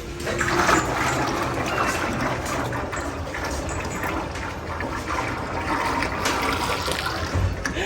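Water rushing and pouring in a steady stream, starting about half a second in.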